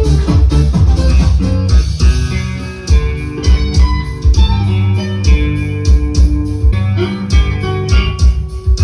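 Guitar-led music with a steady drum beat and heavy bass, played through a Vamav Aura 12 compact PA system: a 12-inch subwoofer with a satellite speaker.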